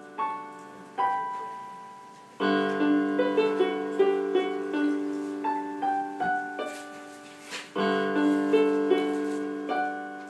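Background piano music: single notes of a melody ringing and fading over held chords, with fuller chords struck about two and a half seconds in and again about eight seconds in.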